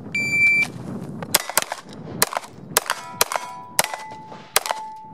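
A shot timer's start beep, then a fast string of about ten 9mm shots from a CZ P09 pistol. Steel targets clang and ring as they are hit, and the last plate rings on longest.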